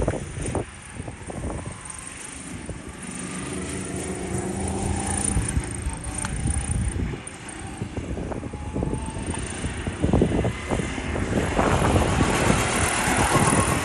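Go-kart engine running as the kart laps the track, its pitch rising and falling with the throttle, and getting louder as the kart comes near and passes close by near the end. Wind buffets the microphone near the start.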